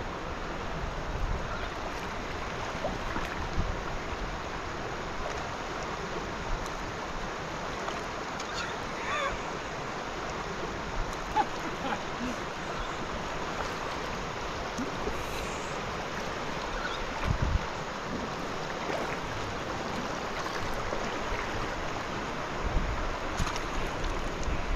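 Steady rush of river water running over rocky riffles, with a few brief low buffets of wind on the microphone.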